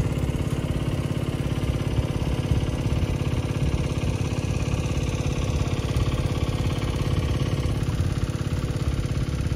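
An engine running steadily at an unchanging speed, with an even pulsing hum.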